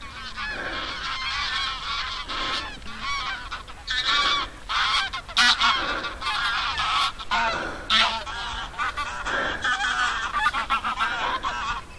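A flock of geese flying overhead, honking continuously, with many calls overlapping.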